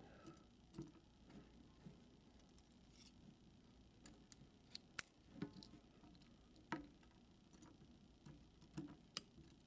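Scattered small metallic clicks and taps as pins and springs are taken out of a disassembled Mul-T-Lock Interactive+ lock cylinder, with a sharp click about five seconds in and another shortly before seven seconds.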